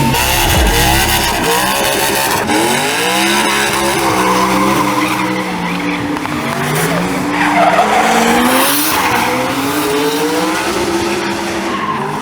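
A drift car's engine revving hard, its pitch climbing and dropping again and again as the throttle is worked, over a steady hiss of squealing, sliding tyres.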